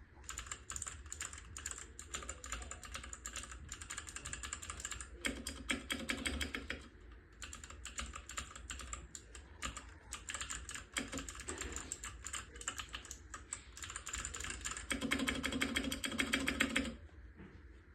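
Typing on a DK68SE mechanical keyboard with clicky blue switches: a dense run of sharp key clicks, with a short pause partway and louder bursts of fast typing, stopping about a second before the end.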